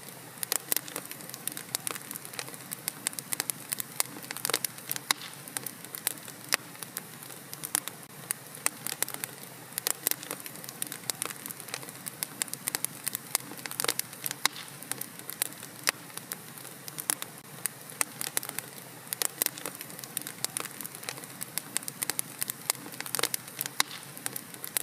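Wood fire burning in a fireplace, with a soft steady hiss and frequent sharp, irregular crackles and pops.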